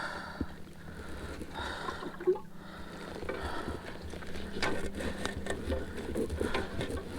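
Water lapping and splashing around a kayak, with scattered small knocks and clicks of gear against the hull, over a faint steady hum.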